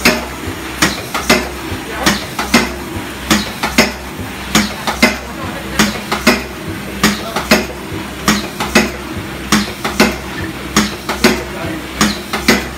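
Aluminium foil container making machine running in production, working at about 48 strokes a minute. Each cycle gives a pair of sharp metallic clanks about half a second apart, over a low pulsing machine hum.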